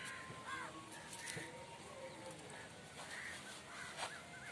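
Faint outdoor bird chirps, a scattering of short calls that come more often in the second half, over the soft scraping of a hand digging into loose potting mix.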